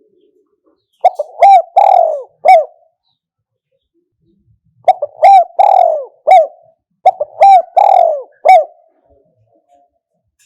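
Spotted dove cooing: three phrases of four or five short coo notes each, starting about one, five and seven seconds in. It is the kind of call used to lure wild spotted doves to a trapping decoy.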